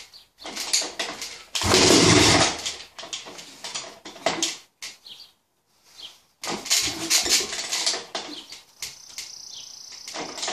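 Honda CR500 two-stroke engine with a 38 mm billet Smartcarb being kick-started: clattering kicks, with one loud burst about a second and a half in that lasts about a second. The engine does not keep running, which the owner thinks may come from a throttle valve spring too weak to stop the engine's vacuum opening the slide and bypassing the choke circuit.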